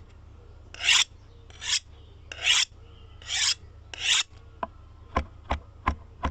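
Five rasping, scraping strokes about a second apart, then sharp, evenly spaced knocks, about two or three a second, starting about four and a half seconds in.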